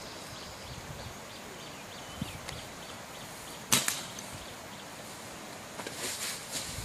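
A single sharp shot from a dart gun about halfway through, firing a medication dart at an injured elephant.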